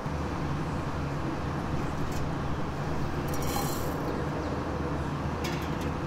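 Dry toor dal, black peppercorns and dry ginger pieces rattling briefly into a steel kadai three times, the biggest pour about halfway through, over a steady low hum.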